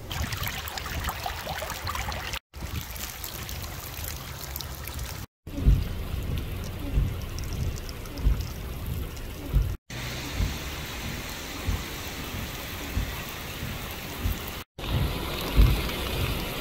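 Flash-flood water running over a sandy wadi bed, a steady rushing haze with occasional low thumps. The sound cuts out briefly four times between clips.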